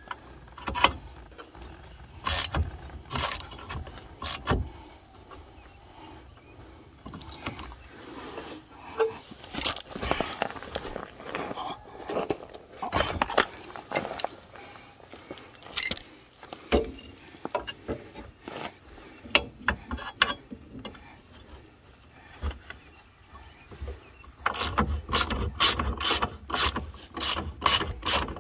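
Hand socket ratchet clicking as it turns a bolt in a steel leaf spring hanger bracket, at first in scattered clicks and short strokes. Near the end come fast, even runs of clicks.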